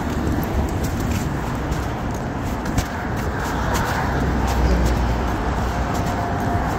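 City street traffic: cars driving past, with a low rumble that swells about four to five seconds in.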